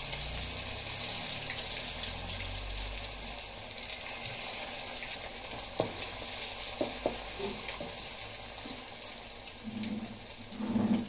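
Masala-coated catla fish pieces frying in hot oil in a metal kadai, a steady loud sizzle. Around the middle come a few light clicks of a metal slotted spoon against the pan.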